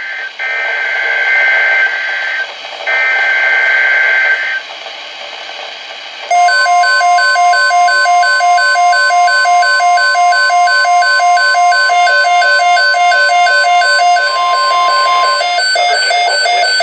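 Emergency Alert System SAME header: two short, harsh two-tone data bursts. About six seconds in, the NOAA Weather Radio steady alert tone starts and stops after about nine seconds. A rapidly pulsing electronic beeping alarm runs over it and keeps going to the end.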